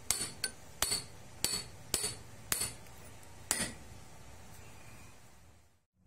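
Sharp metallic taps on a rack-and-pinion steering housing and its shaft while new engineering-plastic bushings are fitted, about seven in all, roughly two a second. They stop a little past halfway.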